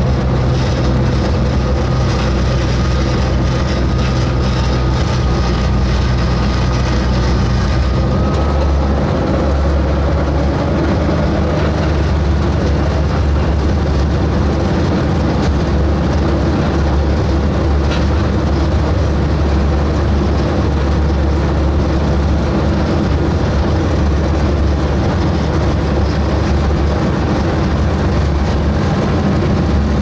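Small forest-railway diesel locomotive engine running under way, heard loud from inside its cab. Its note shifts and rises slightly about eight seconds in, then holds steady.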